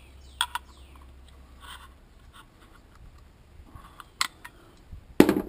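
Light metallic clicks of pliers and side cutters on a vacuum cleaner's electric motor as the fan is gripped, with a louder metal clatter near the end.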